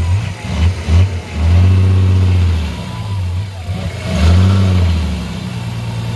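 Off-road vehicle's engine revving in bursts: three quick throttle blips, then two longer surges, dropping back toward idle between them and settling to a steady run near the end.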